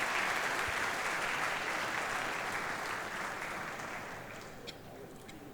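Audience applause that dies away gradually over the last couple of seconds, leaving a few scattered claps.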